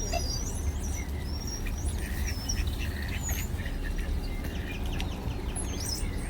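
Birds chirping and calling, many short high chirps and whistled notes, some sliding up or down, over a steady low rumble.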